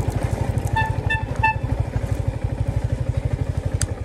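Yamaha motorcycle engine running at low speed with an even, rapid pulse, with three short horn beeps about a second in. The engine cuts off right at the end as the bike stops.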